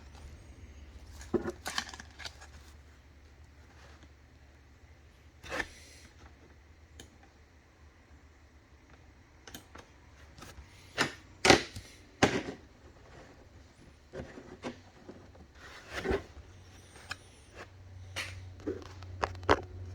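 Trading cards and their packaging being handled: scattered clicks, rubs and rustles, with a couple of louder knocks about halfway through, over a low steady hum.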